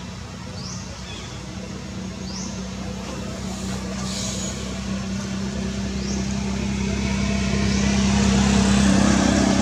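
A motor vehicle's engine hum growing steadily louder as it approaches, loudest near the end. Short rising high-pitched chirps repeat every second or two over it.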